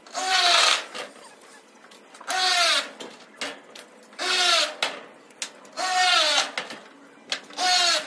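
A power drill running in five short, regular bursts about two seconds apart, each burst dropping in pitch as it ends.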